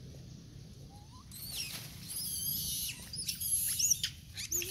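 Macaques squealing: a run of short, high-pitched squeals that glide up and down, starting about a second in and loudest near the end.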